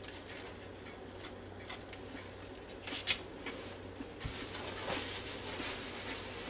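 Faint handling noises on a kitchen counter as a burger in a bun is set down on a paper plate: scattered small clicks and rustles, a sharper click about three seconds in and a soft low thump a little after four seconds.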